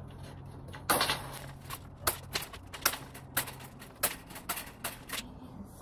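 Hand wire cutters snipping through welded wire mesh: a run of about ten sharp snips at uneven intervals.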